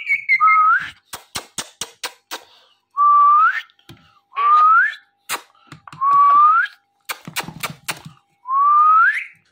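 Indian ringneck parrot whistling: about five rising whistled notes, each sliding upward over most of a second. Runs of sharp clicks fall between the notes.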